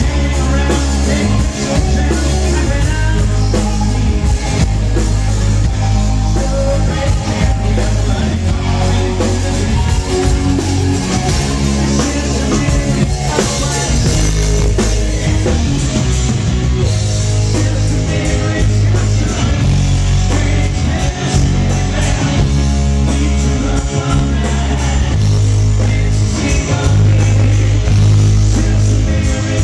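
Live rock band playing loudly: electric guitar and a drum kit with crashing cymbals over a heavy, steady bass.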